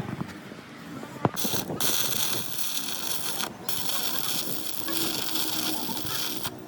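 A sharp click, then a loud, steady hiss that runs in long stretches with a few brief breaks.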